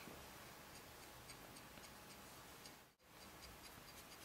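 Near silence: room tone with faint, evenly spaced high ticks, several a second, and a brief dropout about three seconds in.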